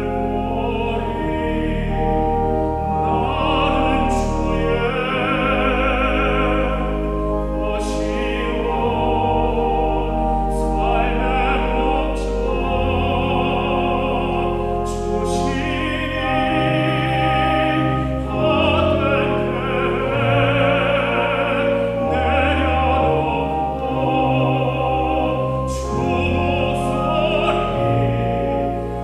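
A classically trained solo voice sings a sacred song in long phrases with wide vibrato, over held instrumental accompaniment.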